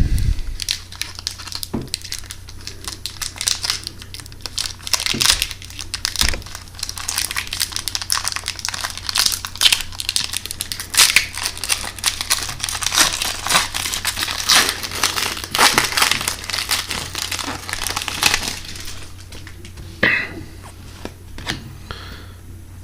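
A trading-card pack wrapper being torn open and crinkled, with dense crackling rustles as the cards are handled; it dies down near the end, leaving a few brief rustles.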